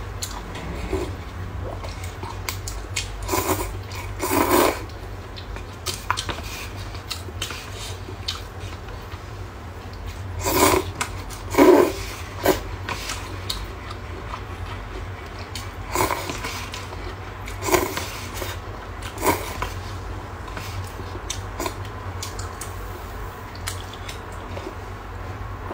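Someone slurping instant rice noodles and broth from a paper cup: a series of short, separate slurps and sips, the loudest about eleven seconds in, with a few light clicks of chopsticks, over a low steady hum.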